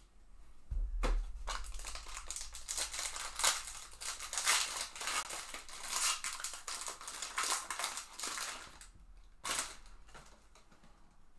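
Foil trading-card pack wrapper crinkling and tearing as it is ripped open by hand, with dense crackling lasting about eight seconds. Then comes one short rustle near the end.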